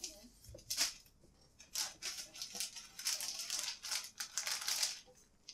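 Plastic packaging of soft-plastic fishing baits rustling and crinkling as the packs are handled, in several short bursts with quiet gaps between.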